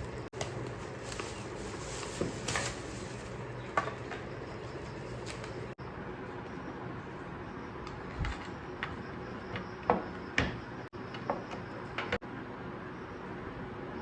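Household objects being handled and set down: scattered small knocks and clicks over a steady low room hum, broken by a few abrupt cuts.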